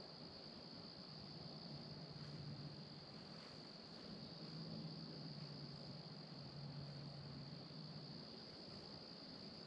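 Faint, steady, high-pitched chorus of insects trilling without a break, with a faint low hum under it for several seconds in the middle.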